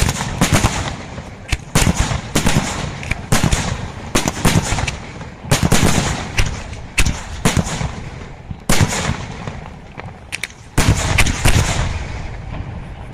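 Aerial firework shells bursting in rapid, irregular succession: many sharp bangs with crackling between them, a heavy cluster about eleven seconds in, then dying down near the end.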